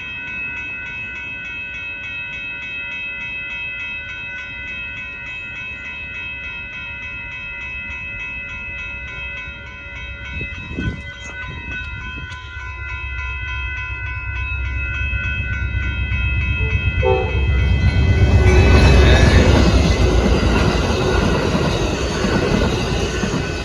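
Railroad grade-crossing bell ringing steadily with evenly repeated strikes. About two-thirds of the way in, the Amtrak Texas Eagle passenger train reaches the crossing and passes in a loud rush and rumble of locomotive and cars, loudest a couple of seconds after it arrives.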